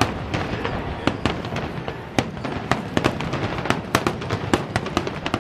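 Fireworks finale: a rapid, irregular barrage of sharp bangs and crackles from aerial shells bursting, several a second over a steady crackling rumble.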